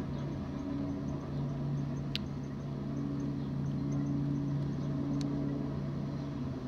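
A coal train rolling past: a steady low hum over a rumble, with two sharp clicks about two and five seconds in.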